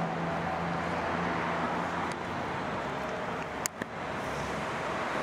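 Steady background hum of distant road traffic, with a couple of faint clicks about two and three and a half seconds in.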